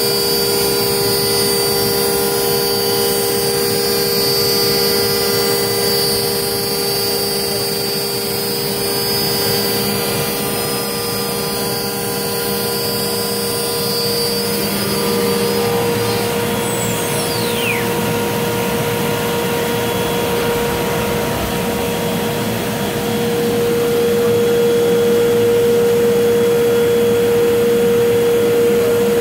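Limtech Centaurus CNC router machining ABS plastic: the spindle, set to 12,000 rpm, runs with a steady whine and several steady tones while the cutter throws off chips. The tones shift slightly about fifteen seconds in, a brief falling whistle comes soon after, and it grows a little louder for the last few seconds.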